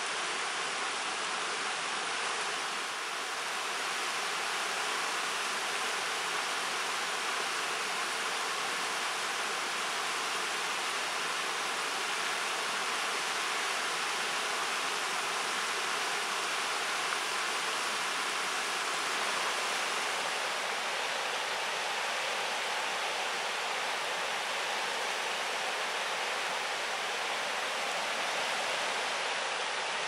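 Deschutes River rushing over a shallow, rocky riffle: a steady, even hiss of moving water.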